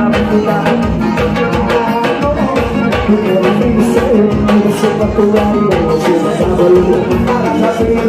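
Live forró pisadinha band playing amplified dance music: a steady, even beat with congas, electric keyboard and electric bass.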